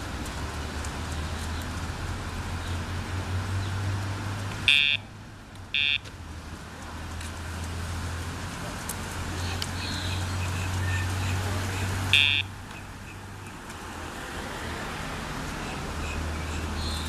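Dogtra remote training collar's sound box beeping three times with short high tones: twice about five and six seconds in, then once more around twelve seconds in. Each beep marks a press of the remote's pager or stimulation button. A steady low hum of traffic runs underneath.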